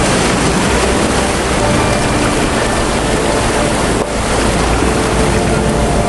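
Rushing brown floodwater, a loud steady noise of torrential water, which dips briefly about four seconds in.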